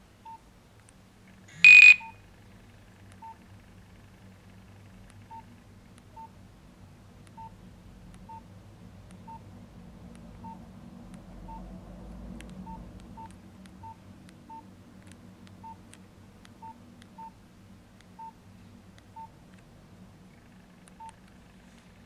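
Nokia 2330 Classic keypad tones: short beeps, one per key press, coming at an irregular pace as the menus are stepped through. About two seconds in, a single loud, brief high-pitched tone sounds.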